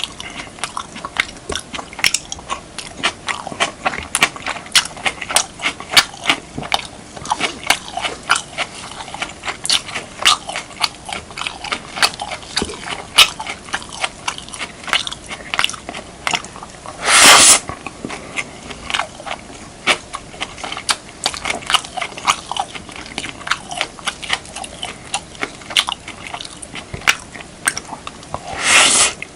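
Close-miked eating of beef, kimchi and rice: a steady run of wet chewing clicks and smacks. Two louder, brief noisy rushes stand out, one about halfway through and one near the end.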